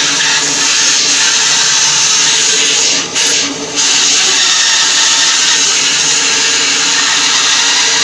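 Old bandsaw running steadily while its blade cuts through a bark-covered firewood log. The sound drops briefly twice a little past three seconds in.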